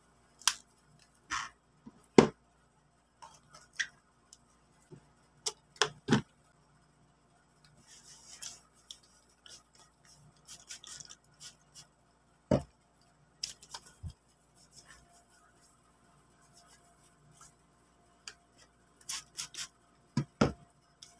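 Slime being squished and pulled in the hands, giving scattered sticky clicks and pops at irregular intervals, with a softer rustle in the middle.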